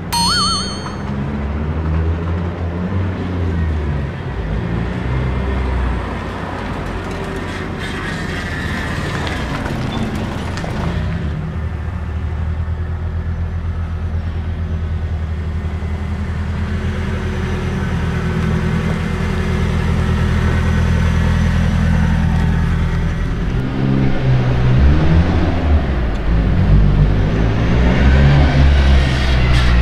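Nissan FJ20ET turbocharged 2.0-litre four-cylinder engine of a DR30 Skyline running at a steady speed, then revved up and down several times near the end.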